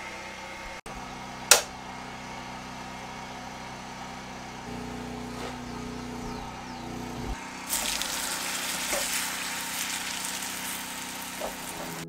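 Cooking on a biogas-fed gas burner: a sharp click about a second and a half in, then a steady background hiss. In the last four seconds a brighter, louder hissing sizzle comes from the frying pan.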